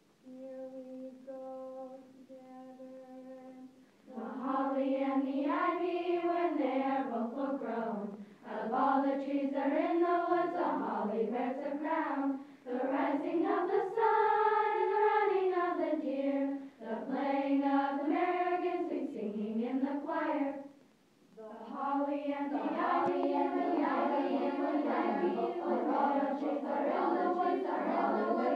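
A children's choir singing, phrase after phrase with short breaks between them. The first few seconds are three quieter held notes on one pitch before the full singing comes in.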